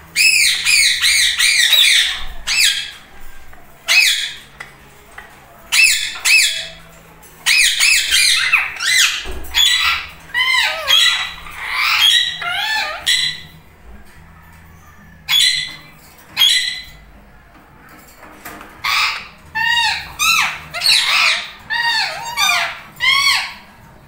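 Indian ringneck parakeets giving loud, harsh squawking calls in quick runs, with short pauses between the runs.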